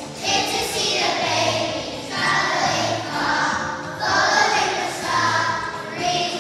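A group of children singing a Christmas song in phrases with musical accompaniment.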